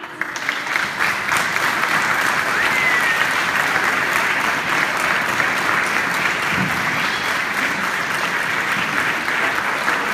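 Audience applauding: dense, steady clapping that swells up within the first second and then holds.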